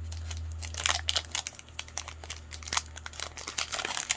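Crinkling and rustling of a foil trading-card pack wrapper as it is opened and the cards are handled, many small crackles throughout, with a steady low hum for the first three seconds or so.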